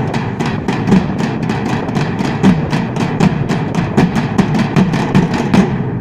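A group of drummers beating large steel-shelled drums with sticks in a fast, even rhythm, with deep hits under sharp cracking strokes. The drumming stops right at the end.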